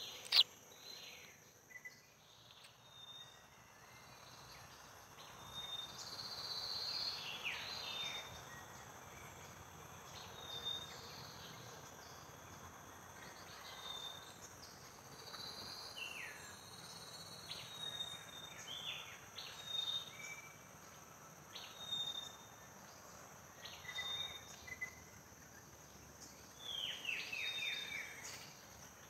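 Birds chirping: short high chirps every second or two, with bursts of quick falling notes. A single sharp click comes just after the start.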